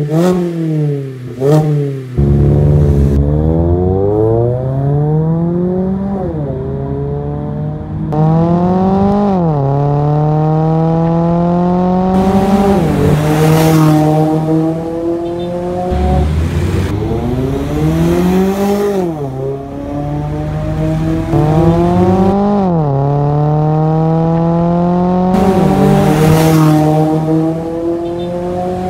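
2017 Mazda MX-5's four-cylinder engine through a Drift Xaust aftermarket full exhaust system. A couple of quick revs come first. Then the car makes two hard acceleration runs, its pitch climbing through each gear and dropping at every upshift.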